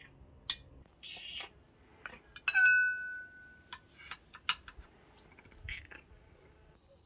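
Dishes and utensils clinking and knocking, with a short scrape about a second in. About two and a half seconds in, one loud clink of glass or china rings on for about a second.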